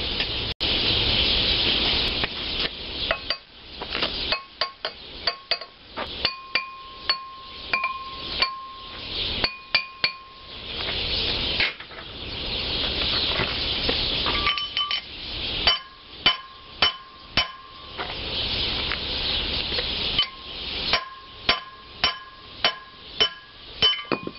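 Repeated hammer blows on a cast-iron flat belt pulley hub, driving the pulley off the crankshaft of a McCormick-Deering Type M engine. Each strike rings metallically. The blows come in three quick runs.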